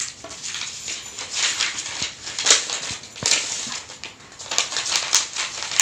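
Sheets of thin paper, tracing paper among them, rustling and crackling as they are handled and leafed through, with several sharp crackles in the second half.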